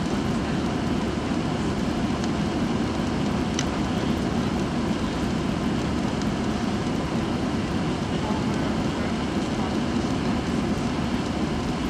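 Steady engine and airflow roar inside the cabin of an Airbus A320 climbing out after takeoff, an even low rumble that holds constant throughout.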